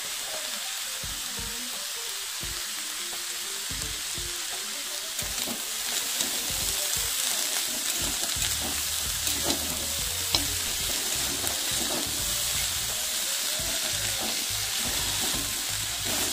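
Shredded cabbage and onion sizzling in hot oil in an iron kadhai while a metal spatula stirs and tosses them, with a few sharp scrapes and clicks of the spatula on the pan. The sizzle grows a little louder about six seconds in.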